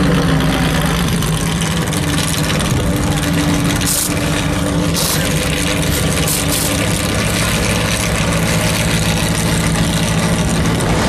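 Off-road race truck's engine idling with a steady low drone while stopped, with a few short high-pitched hissing bursts between about four and seven seconds in.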